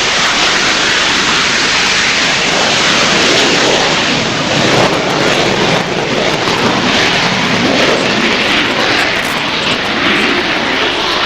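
Military jet aircraft engine noise, a loud steady roar of a fast jet flying a display pass.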